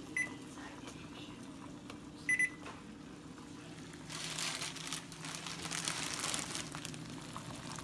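A kitchen appliance beeps, once just after the start and again with a quick double beep about two seconds in. From about four seconds in, a plastic instant-ramen packet crinkles as it is handled, over a low steady hum.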